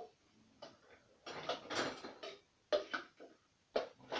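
Dishes and cutlery clinking and clattering in a string of short, irregular knocks, a denser clatter about one and a half seconds in, as dishes are handled at an open dishwasher.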